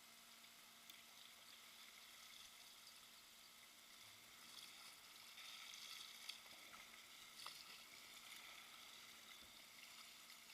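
Faint, steady hiss of flowing river water, swelling slightly in the middle, with a few small knocks.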